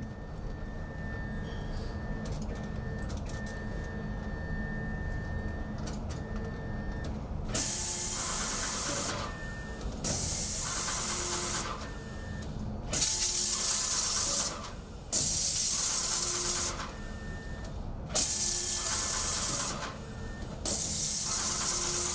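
Painting robot's spray gun hissing as it sprays paint into a wall corner, in six bursts of about a second and a half each, starting about seven seconds in; before the first burst only a steady low hum.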